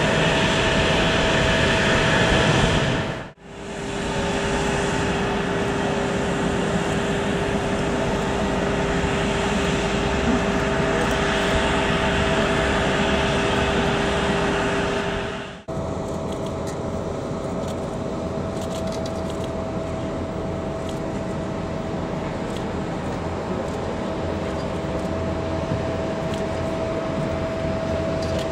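Airport apron ambience: a steady rush of distant aircraft and ground-vehicle noise with a constant whine. The sound dips out briefly about three seconds in and again about sixteen seconds in, where separate takes are joined, and the last take is a little quieter.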